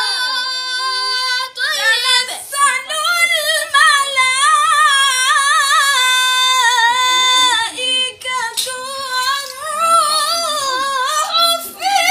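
A boy's high voice chanting Quran recitation in melodic tajweed style, drawing out long, wavering, ornamented notes with short breaks between phrases.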